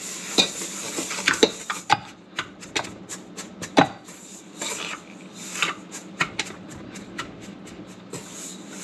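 A stand mixer's flat beater worked by hand in a stainless steel bowl of flour, sugar and butter, scraping and knocking irregularly against the bowl as it crushes the butter into the dry ingredients. The sharpest knock comes about four seconds in.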